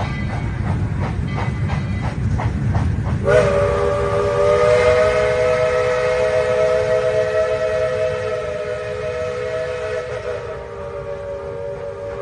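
Narrow-gauge train cars rolling past, with a rhythmic clickety-clack of wheels over the rail joints and a low rumble. About three seconds in, the steam locomotive's chime whistle starts one long, steady blast of several notes at once.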